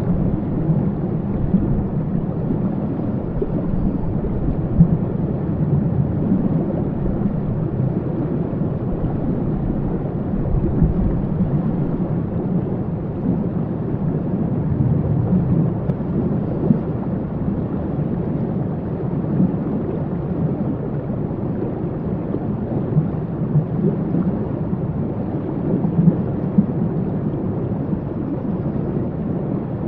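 Waterfall with water rushing steadily, a deep, even roar heavy in the low end with small irregular surges.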